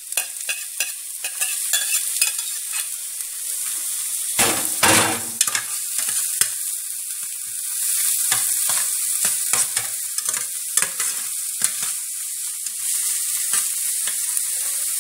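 Chopped onion, garlic and green pepper sizzling in hot oil in the metal inner pot of an electric pressure cooker, with a metal spoon clicking and scraping against the pot as they are stirred. There is a louder clatter about four and a half seconds in.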